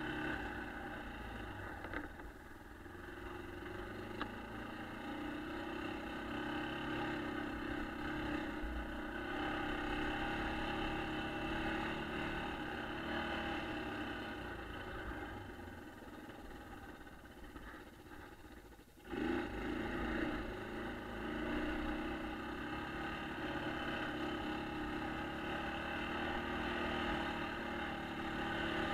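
A 1996 Yamaha Kodiak ATV's single-cylinder four-stroke engine running steadily as it rides along a trail. It fades for a few seconds, then comes back sharply louder about two-thirds of the way through.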